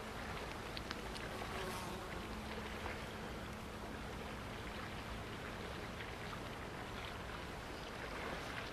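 Steady outdoor wash of wind and small waves lapping along the lough shore, with a faint low steady hum that fades out about halfway through.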